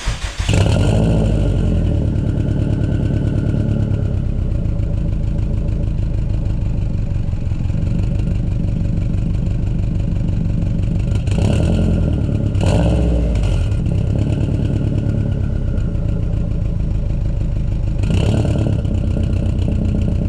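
A 2002 Subaru WRX's turbocharged flat-four runs at a steady idle through its catback exhaust after starting suddenly. Brief louder blips come about halfway through, again soon after, and near the end.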